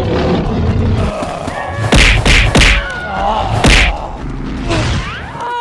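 Punching sound effects from a fight: about four heavy thuds and whacks in quick succession, the loudest ones around two seconds in.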